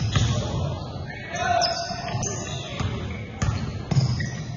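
A basketball bouncing on a hardwood gym floor during play, a few separate thuds, with players' voices in the hall.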